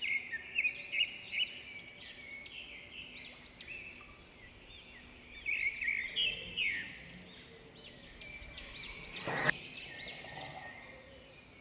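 Several small birds chirping, with quick rising-and-falling calls overlapping one another throughout. A single sharp click sounds about nine and a half seconds in.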